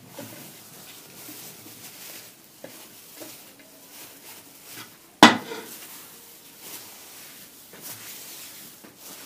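Soft rustling and small clicks of gloved hands breaking dry leftover bread onto a plate. A little past halfway comes one sharp, loud knock with a brief ring, like something hard striking the plate or the stone counter.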